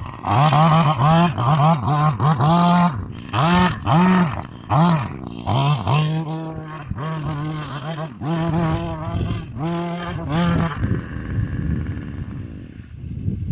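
Weed whacker fitted with a metal blade, its engine revved in short bursts, pitch rising and falling over and over as it cuts wheat stalks. It stops about eleven seconds in.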